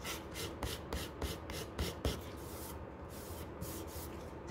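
Hand-held nail file scraping old varnish off a wooden box in quick back-and-forth strokes, about three or four a second, slowing near the end.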